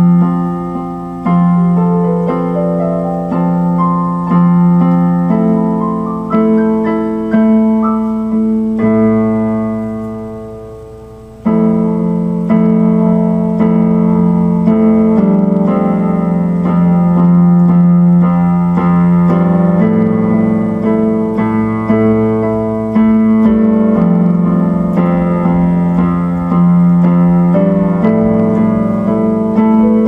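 Electronic keyboard played with a piano voice: slow chords under a simple melody, each struck and left to ring. Shortly before the middle, one chord is held and fades for a few seconds before the playing starts again.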